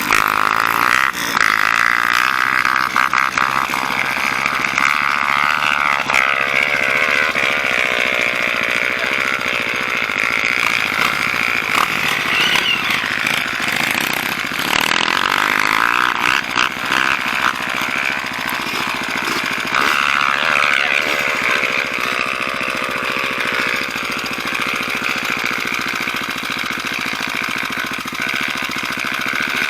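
Trail motorcycle engines running, their pitch rising and falling with the throttle.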